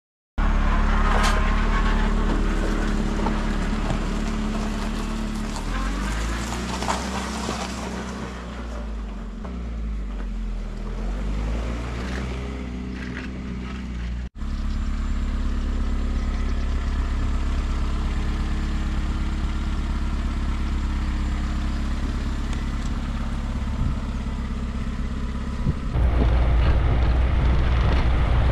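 An engine runs steadily while logs are worked on a homemade hydraulic log splitter, with a few sharp cracks in the first half and the engine pitch dipping and recovering between about 6 and 11 seconds in. After a brief dropout about halfway, a homemade 4x4 UTV's engine runs steadily and gets louder near the end as it drives.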